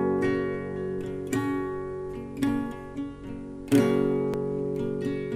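Background music: acoustic guitar chords, strummed afresh about once a second and ringing out between strums.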